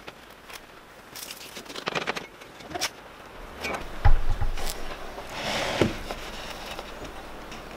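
Handling noise of a plywood board being positioned on a wooden table-saw crosscut sled: scattered light clicks and knocks, a thump about four seconds in, and a sliding scrape near the end, with the saw not cutting.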